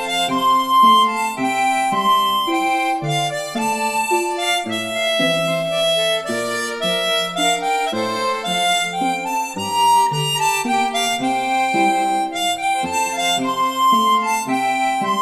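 Instrumental music led by a harmonica, playing a melody of quickly changing notes.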